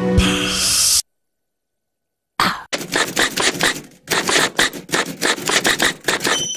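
Television ad-break ident sound effect: the tail of a music cue cut off about a second in, then, after a second of dead silence, a run of irregular scratchy clicks and crackles lasting about five seconds.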